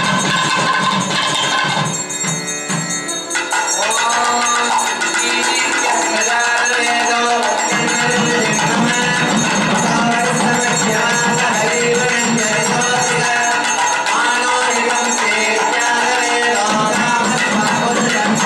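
Indian devotional music: a melody over steady percussion, thinning briefly about two seconds in before picking up again.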